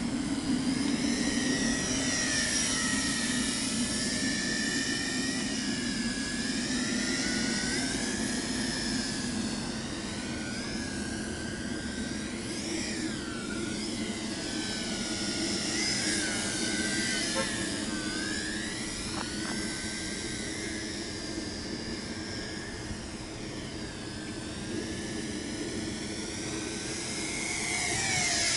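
Tarantula X6 drone's propellers and motors whining as it flies overhead, the pitch rising and falling over and over as it manoeuvres and passes by.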